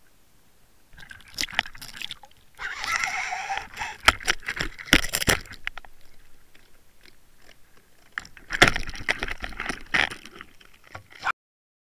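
Hooked northern pike thrashing at the water surface, heard through a waterproof camera housing on the line, with spells of splashing and sharp knocks and rattles from the lure rig. The splashing is loudest about three seconds in and again near the end, then cuts off abruptly.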